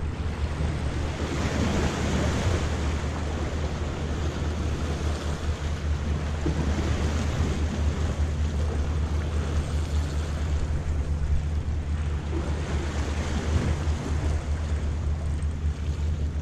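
Small waves washing and splashing around rocks, swelling and easing every few seconds, with a steady low wind rumble on the microphone.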